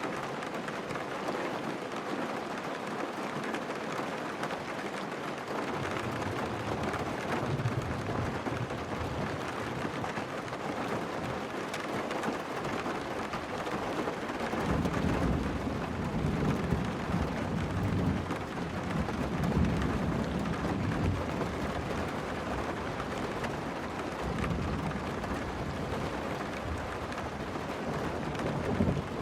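Rain falling steadily, with low rolling thunder rumbling in swells from about halfway in and again near the end.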